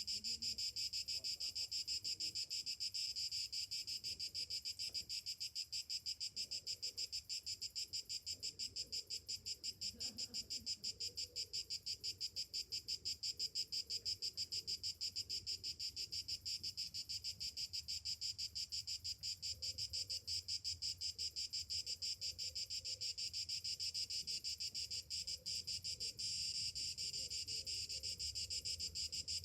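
Cicadas chorusing: a dense, high-pitched buzz made of very rapid pulses, steady throughout and a little fuller near the end.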